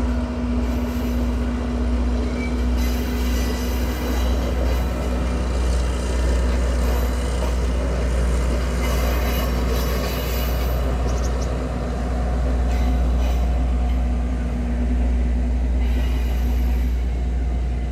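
Passenger train rolling across a stone arch viaduct: a steady low rumble of wheels and carriages with a continuous hum underneath.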